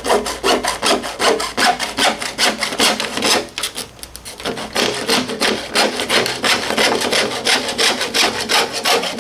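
Hacksaw cutting through a 10 cm PVC pipe in fast, even back-and-forth strokes, about five a second. The sawing pauses briefly about four seconds in, then resumes.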